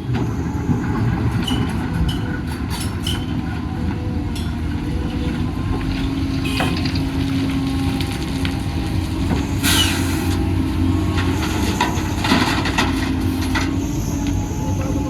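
Doosan DX250 excavator's diesel engine running under load while it works, its pitch shifting a little, with several sharp knocks and a few short hissing bursts.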